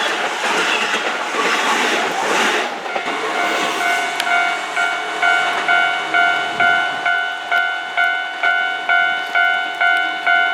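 Keihan electric train running over a level crossing with wheel and rail noise. About three seconds in, a Japanese level-crossing alarm starts ringing, an electronic bell striking about twice a second.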